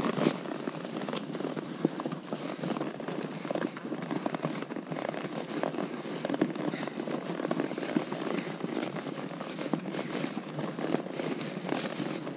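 Horse's hooves on a rocky dirt trail at a walk: irregular clopping, knocking and crunching of hooves on stone and gravel.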